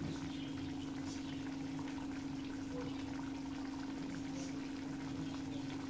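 Masala gravy simmering in a steel kadai on a gas stove, small bubbles popping over a steady low hum.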